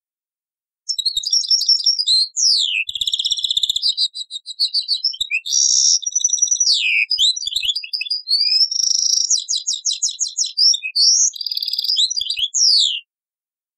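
European goldfinch singing a long, varied song of rapid twittering trills, buzzy notes and sharp falling slurs. It starts about a second in and stops abruptly near the end. The song is a recording dubbed from an old cassette tape.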